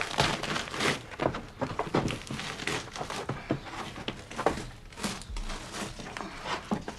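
Irregular crackling and tearing as glued linen is peeled off a wall, lifting a fresco away: the sound of the fresco's thin crystalline boundary layer shearing from the plaster beneath.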